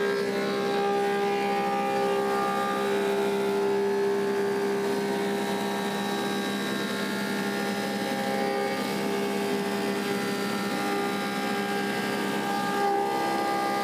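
Woodmaster 725 planer running with a steady machine hum and whine while an elm slab feeds through its cutterhead, planing the cupped slab flat.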